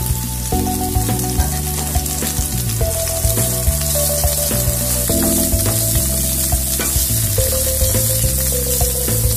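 Chopped onions sizzling in hot oil with curry leaves, garlic and green chillies in a kadai, stirred with a spatula that scrapes and clicks against the pan. Background music plays throughout.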